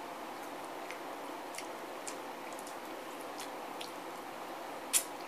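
Chewing and gnawing on a bone-in chicken wing: scattered small wet clicks and smacks over a steady hiss, with one sharper click about five seconds in.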